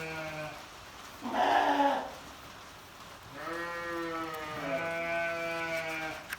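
Sheep bleating in the barn: a long call fading out half a second in, a short, rougher bleat around a second and a half, then two long, drawn-out bleats one after the other.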